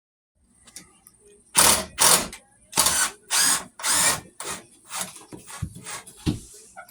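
Power drill run in a series of short bursts, about nine in all, the loudest five close together in the first half and weaker ones after.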